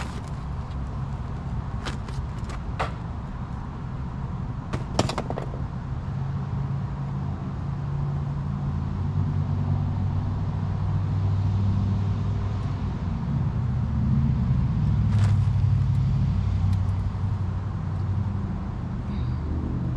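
A steady low rumble that swells through the second half, with a few sharp metal clicks and knocks as brake parts are handled at a truck's rear wheel.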